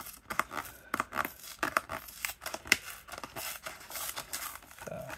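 A thin cardboard Yu-Gi-Oh! structure deck box being pried open by hand, its glued flap scraping and tearing loose in a run of small, irregular scrapes and clicks.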